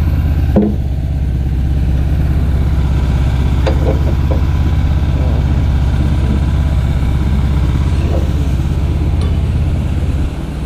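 A motor running steadily with a low, even pulsing hum that drops away about ten seconds in, with a few light clicks over it.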